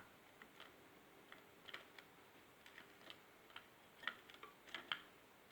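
Faint, irregular small clicks and ticks from a caged European goldfinch at its seeds and perches, over quiet room tone.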